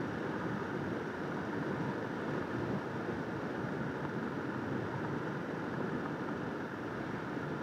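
Kawasaki KLR650 single-cylinder dual-sport motorcycle riding at a steady pace, its engine and tyre noise mixed with wind rushing over the microphone.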